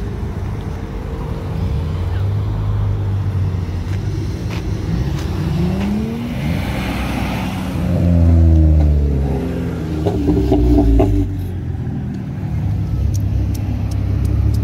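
Cars pulling away and driving past one after another, their engines rising in pitch as they accelerate. The loudest pass comes about eight seconds in, followed by a short burst of revving around ten seconds.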